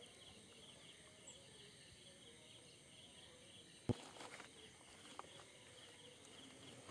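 Near silence with a faint, rapid high chirping in the background. About four seconds in comes one sharp knock, a clump of oyster shell set down on the boat's wooden rail, followed by a few small clicks.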